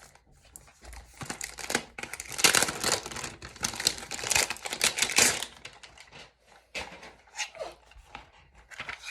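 Hair-clip packaging being torn open and crinkled by hand: a run of tearing and rustling, loudest in the middle, then a few fainter crinkles near the end.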